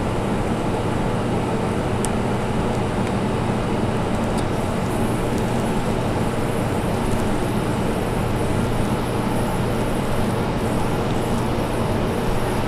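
Steady low hum and hiss of room background noise, with a faint click about two seconds in.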